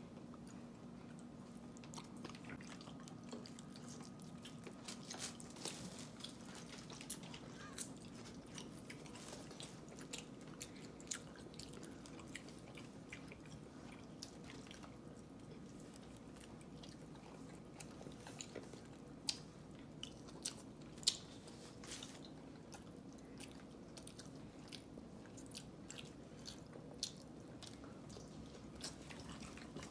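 Eating sounds of cooked crab and shellfish: chewing, with scattered sharp clicks and cracks of shell being handled and picked apart, a few louder ones about two-thirds of the way through, over a faint steady hum.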